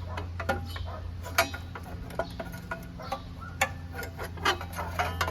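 Irregular metallic clicks and clinks of a 5/16 wrench or ratchet working bolts loose on the snowblower's muffler shield, some with a brief ring, over a steady low hum.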